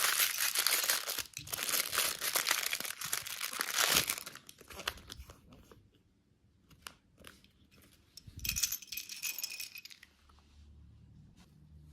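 Plastic candy wrapper crinkling and tearing as it is opened, dense for about the first four seconds. Scattered clicks and rustles follow, then another short crinkle near the end.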